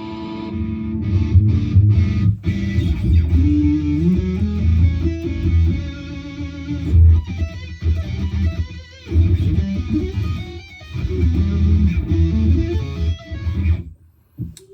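Strandberg Boden Essential 6 electric guitar played through a Headrush modeller on a high-gain patch: a heavy riff on the low strings with short breaks, stopping shortly before the end.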